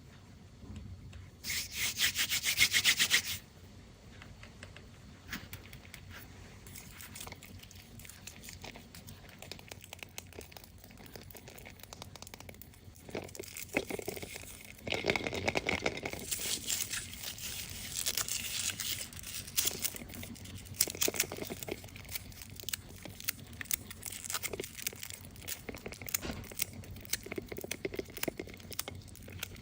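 Foil wrapper of a Kinder Surprise egg being crinkled, rubbed and torn open in quick rustling strokes. There is a loud tearing burst about two seconds in and another near the middle.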